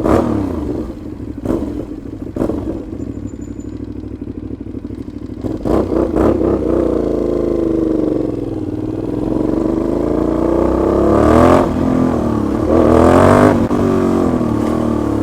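Aprilia Shiver 750's V-twin engine running through an open exhaust with the muffler removed, very loud, its pitch falling and rising as the bike slows and accelerates through the gears. A few sharp cracks come from the exhaust in the first six seconds, and the highest revs come near the end.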